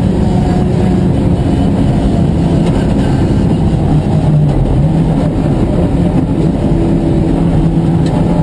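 Ford Escort MKII rally car's engine running hard on a stage, heard from inside the cabin with road noise. The engine note shifts about four to five seconds in.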